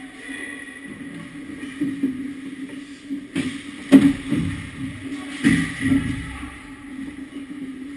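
Ice hockey play around the goal: several knocks and scrapes from sticks, skates and puck near the net, the loudest about four seconds in, over a steady low hum.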